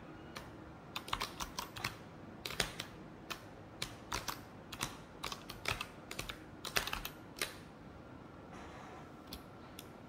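Typing on a mechanical keyboard: irregular runs of quick key clicks starting about a second in, thinning out to a few single keystrokes near the end.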